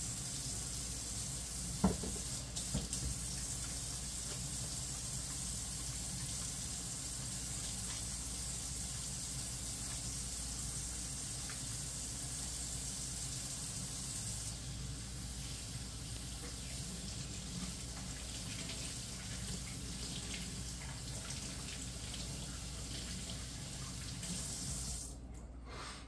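Kitchen faucet running steadily into a stainless steel sink while hands are washed under it, with a sharp click about two seconds in. The water is shut off about a second before the end.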